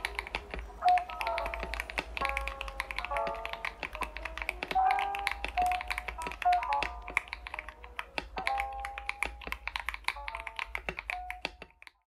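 Continuous typing on a mechanical keyboard fitted with Akko V3 Cream Blue tactile switches: a quick, uneven run of key clacks, mixed with background music carrying a melody. Both fade out near the end.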